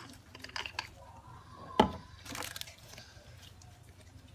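A spoon and cream containers being handled while measuring out cream: scattered clicks and taps, one sharp knock about two seconds in, then a short scrape.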